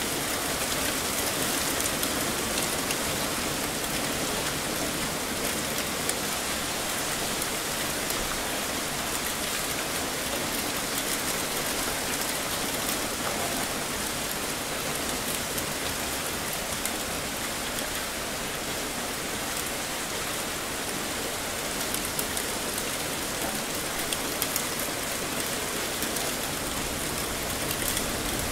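Heavy rain falling steadily: a dense, even hiss with small drop ticks scattered through it.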